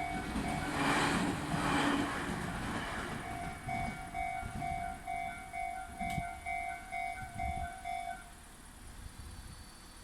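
A train running past and fading away while Japanese level crossing warning bells ring with a rapid, repeated electronic ding. The bells stop about eight seconds in as the crossing clears.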